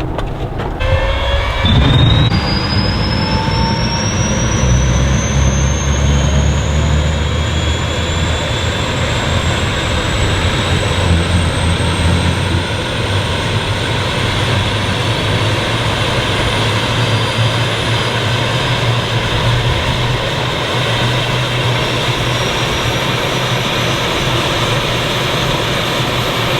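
Helicopter engine starting up: a high turbine-like whine climbing steadily in pitch, with a low rumble coming in about two seconds in.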